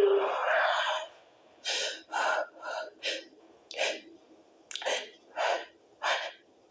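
A woman's stifled sneeze bursting out at the very start, then a string of short, sharp breaths and gasps, about eight of them, as the tickle goes on.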